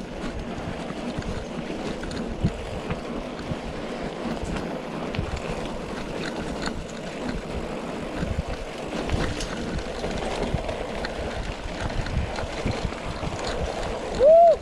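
Steady rushing wind noise on the microphone of a mountain bike's action camera while riding. Near the end a single short, loud tone rises and falls in pitch.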